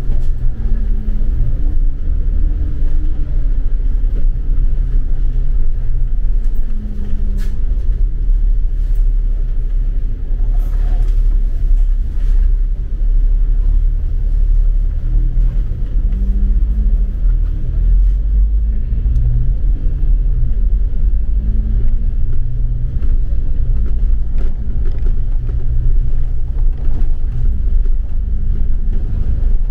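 Steady heavy rumble of a road vehicle's engine, its pitch slowly rising and falling several times as it speeds up and slows down.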